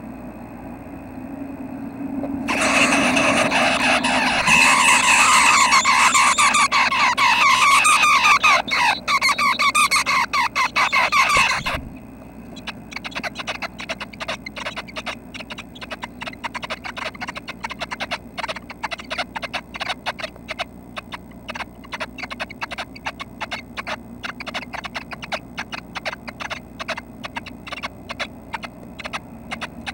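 Red-breasted nuthatch nestlings giving a loud chorus of squealing begging calls for about ten seconds, which stops abruptly. Rapid scratching and clicking follows as the nestlings shift about in the nest box.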